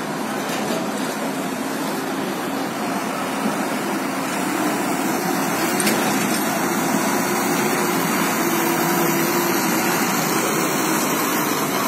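Steady engine noise of trucks and the ferry at a roll-on/roll-off ramp, with a faint wavering hum. It grows slightly louder about four seconds in.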